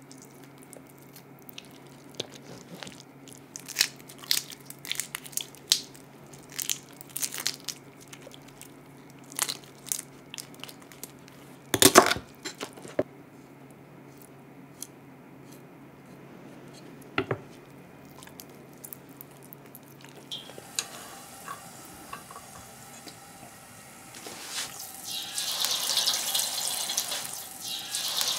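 Kitchen prep sounds: scattered light clinks and knocks of utensils and dishes, with one louder knock about twelve seconds in. In the last few seconds a tap starts running.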